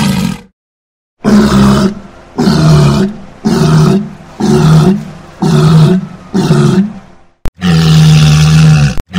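Walrus bellowing: a run of six short, deep calls about a second apart, each dropping a little in pitch, then one long steady bellow near the end.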